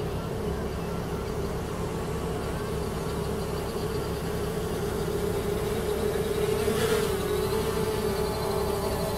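Xiaomi Mi Drone 4K quadcopter's propellers buzzing steadily as it flies back and hovers low, growing a little louder, with a brief wobble in pitch about seven seconds in.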